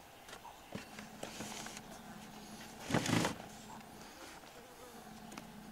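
Handling noises of a shotgun and its rest bag on a shooting bench: a few light clicks, then a louder rustling thump about three seconds in.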